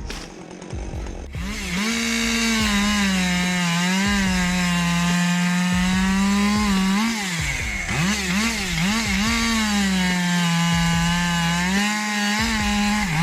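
Chainsaw engine running at high revs while cutting wood. Its pitch sags and recovers several times as the chain is loaded in the cut, most unsteadily about eight seconds in and near the end.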